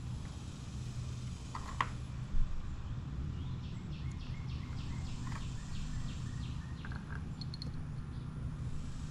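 Steady low background hum, with a few light metallic clicks from drum brake shoes and their return springs being handled and fitted by hand onto a moped's rear brake backing plate. In the middle comes a faint run of short, high ticks, about three a second.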